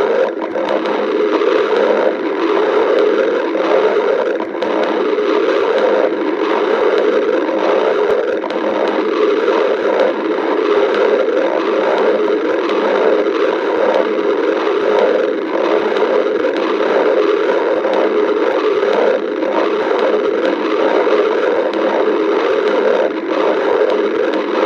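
Stomach growling heard close up: a continuous gurgling rumble of the gut with many small crackles.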